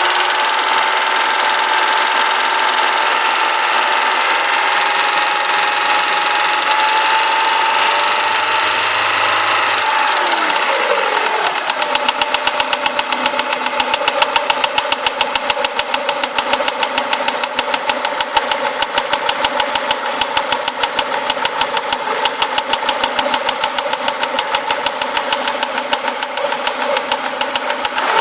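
Renault Clio RS engine held at raised revs that creep slightly upward, then dropping back about ten seconds in and settling to idle with an even, rhythmic pulsing beat.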